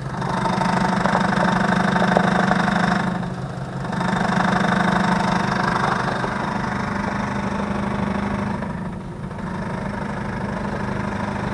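Idling 2005 Chevrolet Tahoe with its new power steering pump knocking rapidly under load. The knock dips briefly about three seconds in and again near nine seconds. It is a load-dependent knock at idle that persists after the valve and steering gear were replaced, and the owner blames the pump itself.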